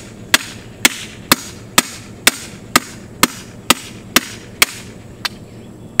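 Sledgehammer striking the top of a steel T-post, about two sharp ringing blows a second in a steady rhythm. The post is barely sinking with each blow.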